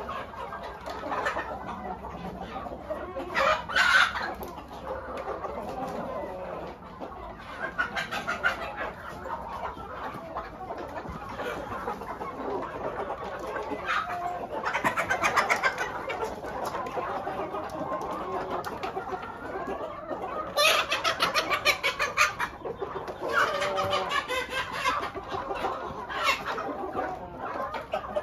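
A large flock of hens and roosters clucking and calling continuously in an enclosed shed. Louder outbursts come several times, with a dense run of rapid calls near the end.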